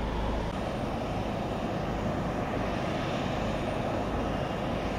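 Steady, continuous noise of an aircraft engine running at an airport, with a faint high whine over it.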